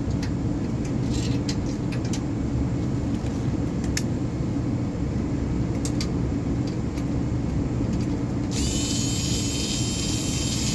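Steady low mechanical hum from running equipment, with a few light clicks. Near the end comes about two seconds of a high hissing whir from the small tool cleaning the furnace's flame sensor.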